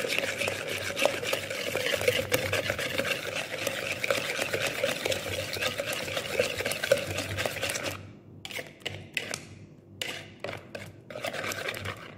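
Wire balloon whisk beating a runny egg mixture in a plastic bowl: fast, continuous rattling and scraping of the wires against the bowl for about eight seconds, then a few slower, separate strokes.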